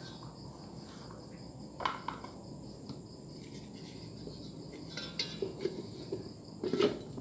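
Plastic lid of a food chopper handled and set onto its stainless-steel bowl: a few light knocks and clicks, about two seconds in and again near the end.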